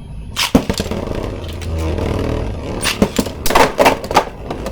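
Beyblade Burst tops launched into a plastic stadium, spinning and scraping across the floor with a steady whir, then clashing in several sharp clacks near the end as the round is decided.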